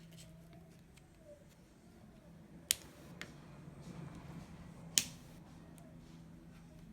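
Small hand tools and phone parts clicking sharply during iPhone repair: two loud clicks about two seconds apart with a fainter one between, over a steady low hum.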